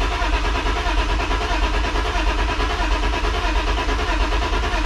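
BMW E36 sedan's engine cranking steadily on the starter motor without firing. It is a crank-no-start with the fuel pump heard running, which the owner suspects is a fuel problem.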